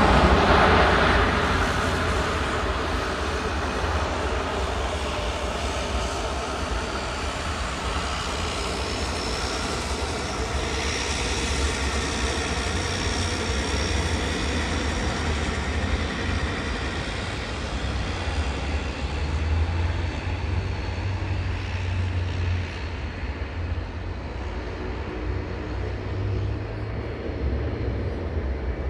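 Jet airliner engines going past, loudest at the start and fading away over the next few seconds into a steady distant roar with a faint high whine.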